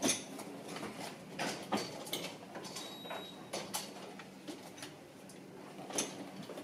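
Scattered light clicks and knocks, irregularly spaced, the sharpest right at the start and about six seconds in, over a faint steady low hum.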